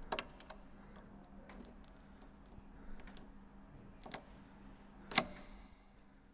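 Key being pushed slowly into a brass door-knob lock: a string of small metallic clicks and scrapes as it rides over the pins, the loudest click, with a short metallic ring, about five seconds in.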